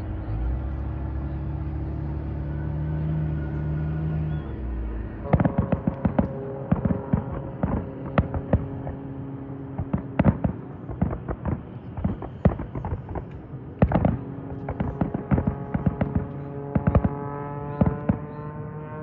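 Fireworks display: a low steady hum for the first five seconds or so, then rapid bangs and crackles going off several times a second.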